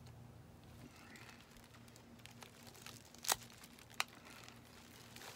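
Faint crinkling of a thin polythene plastic bag being handled, with a few sharp light clicks, the loudest about three seconds in.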